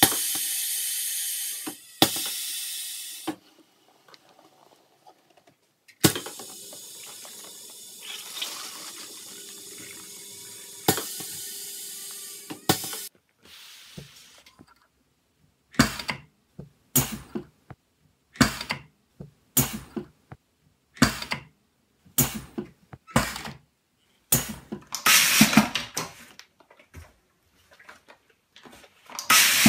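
Pneumatic two-head piston filling machine dispensing syrup: a steady hissing rush broken by sharp clicks as it cycles. Later a semi-automatic label applicator runs with short mechanical clacks about every second, and a longer rattling burst comes near the end.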